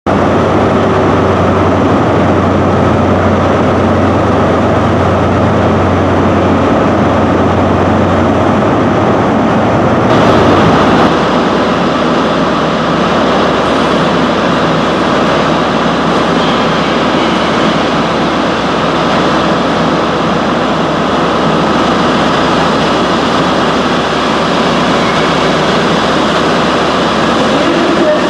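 A train passing close by: a loud, steady rush of wheel and engine noise. A low hum sits under it for the first nine seconds or so, and the sound changes about ten seconds in.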